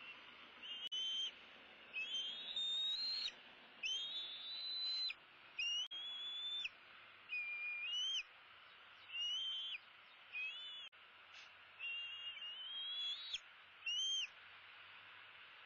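Bald eagle calling: a run of about ten drawn-out, high whistled cries, most rising slightly in pitch, roughly one a second.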